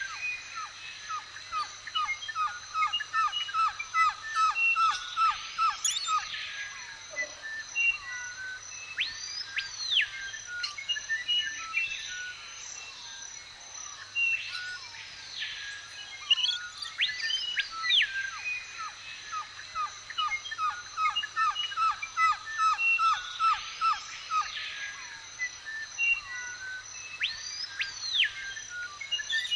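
Birds calling: rising-and-falling whistled calls every few seconds and, twice, a fast trill of rapid notes, over a steady high-pitched drone. The same sequence repeats partway through.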